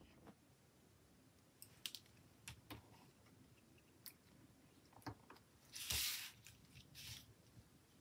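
Faint scattered clicks and taps of metal tweezers setting small paper circle stickers onto a planner page, with a short rustle of paper and hands about six seconds in.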